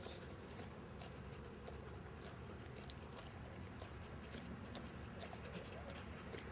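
English Mastiff chewing a raw pork butt: faint, irregular clicks of its teeth working the meat, a few per second, over a steady low background hum.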